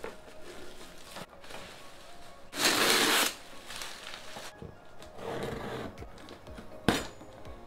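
Clear plastic packaging wrap rustling and tearing off a long cardboard box, loudest for under a second a little before the middle, with more cardboard handling later and one sharp knock near the end. Soft background music underneath.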